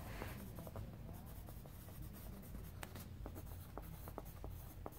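Pencil writing on paper: faint scratching strokes with scattered light ticks as the point touches down and lifts between letters.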